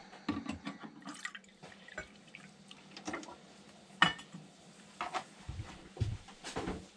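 Light clicks and knocks of a stainless-steel measuring cup of water being handled and set on the countertop, with faint drips of water and one sharper metallic clink about four seconds in.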